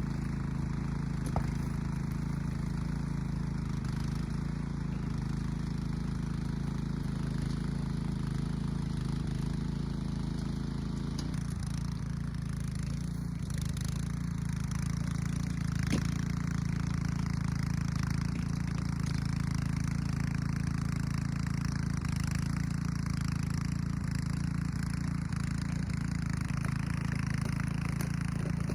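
Small gasoline engine of a rototiller running steadily while tilling soil, its note changing slightly about eleven seconds in.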